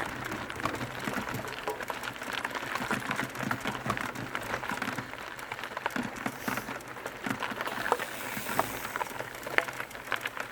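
Mountain bike rolling down a rough dirt trail: a dense, irregular clatter of small knocks and rattles as the tyres run over rocks and roots.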